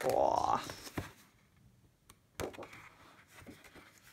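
Sheets of a pad of thick craft paper being handled and leafed through: a few light taps and soft rustling.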